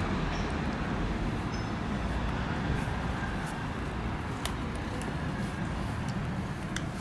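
Steady low rumble of street traffic, with a few crisp clicks of a cat crunching dry kibble.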